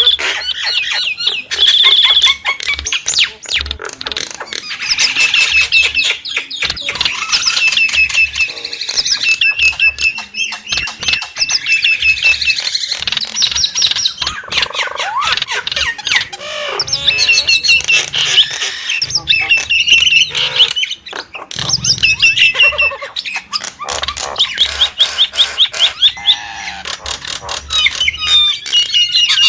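Nias starling singing a long, varied song of rapid whistles, trills, chatters and squawks, with brief pauses.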